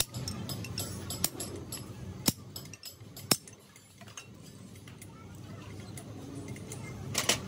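Sharp metallic clinks and taps: three single ones about a second apart, then a quick cluster near the end, from metal tools and parts being handled, over a low steady hum.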